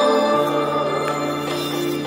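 Background music: slow, sustained chords over a held bass note that changes about a third of a second in.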